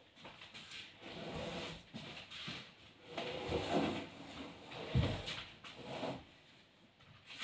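Upholstered sofa sections being pushed and dragged across a wooden floor: irregular scraping and shuffling, with one heavy thump about five seconds in.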